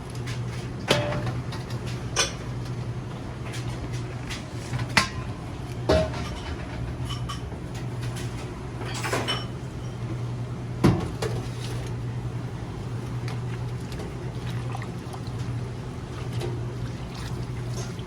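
Electric radish-slicing machine running with a steady low hum, with about half a dozen sharp knocks and clatters scattered over it.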